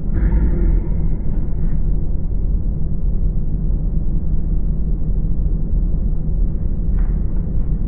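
Tugboat's diesel engine running steadily underway, a loud, even low rumble heard inside the boat's cabin. A light click of plastic lure packaging being handled comes near the end.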